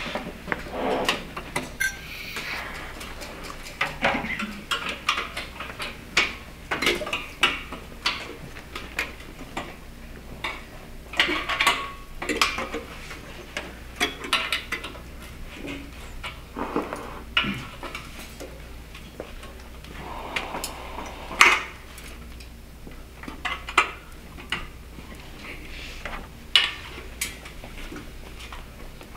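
Scattered, irregular clicks, clinks and knocks of band instruments, music stands and chairs being handled while no one plays.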